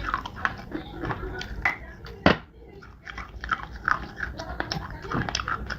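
Close-miked biting and chewing of crunchy clay and slate: a quick run of sharp, crackling crunches, with one loud snapping bite about two seconds in.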